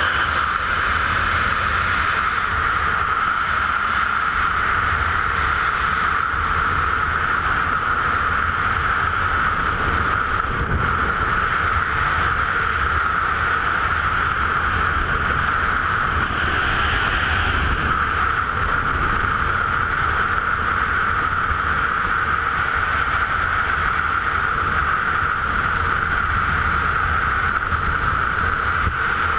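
Steady rush of freefall wind buffeting the camera's microphone during a tandem skydive, an even loud noise with a low rumble underneath.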